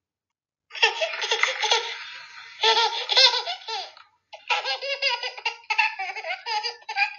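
A baby laughing: a long run of giggles that starts just under a second in, a short break about four seconds in, then quick, short bursts of laughter.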